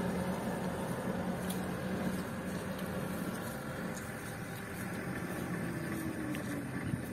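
Truck engine running steadily at low speed; about five and a half seconds in, its note starts to sink slowly.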